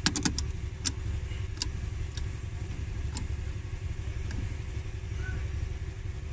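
Metal tool clicks from a 10 mm socket tool tightening the positive terminal clamp on an AGM car battery: a quick run of clicks at the start, then single clicks about once a second. A steady low rumble runs underneath.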